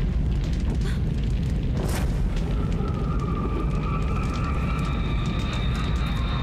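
Deep, steady rumbling drone of a horror soundtrack, joined about two and a half seconds in by a high held eerie tone, over scattered crackling from a bonfire.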